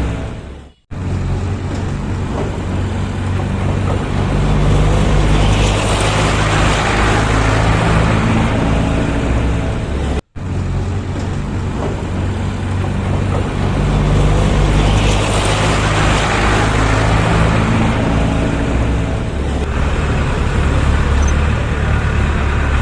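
Steady engine-like running sound of a truck, with a low drone that shifts in pitch now and then. It cuts out abruptly twice, about a second in and about ten seconds in.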